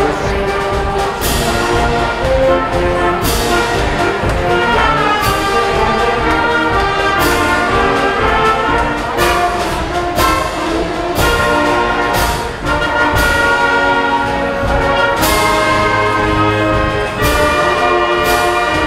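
A high school concert band plays a piece, brass and woodwinds holding full chords, with percussion strokes about every two seconds, in a large gymnasium.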